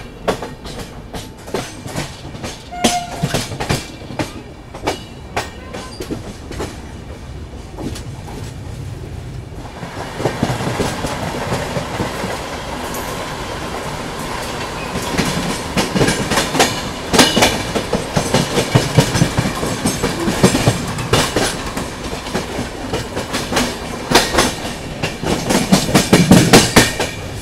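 Wheels of a moving passenger train clattering over rail joints and junction points. The clicks are irregular and grow louder and denser about ten seconds in.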